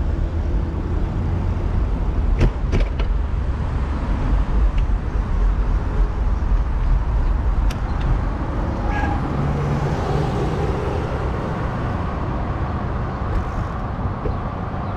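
Steady wind rumble on the microphone of a moving bicycle, with city road traffic behind it. A few short sharp clicks come about two and a half seconds and about eight seconds in.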